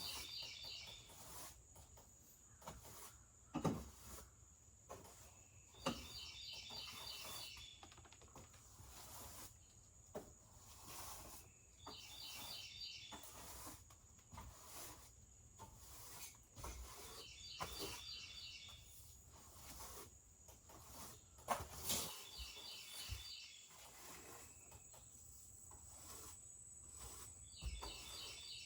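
A songbird repeating a short, rapid trilled phrase every five to six seconds, with a few scattered knocks and a faint steady high whine.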